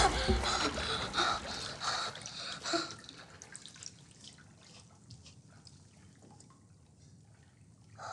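Water dripping and trickling in a bathtub, a run of spaced drips that fade after about three seconds to sparse, faint ones. It follows the fading tail of a loud sound effect.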